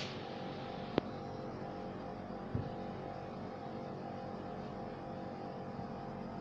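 Steady electrical hum of several held tones, with a sharp click about a second in and a short dull knock a little later.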